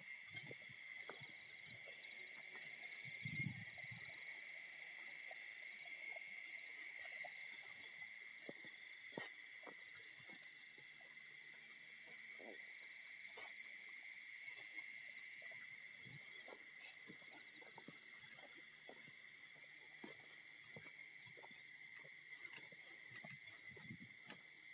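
Faint night chorus of insects such as crickets: a steady high trill with faster pulsing chirps above it, scattered light clicks, and one low thump about three and a half seconds in.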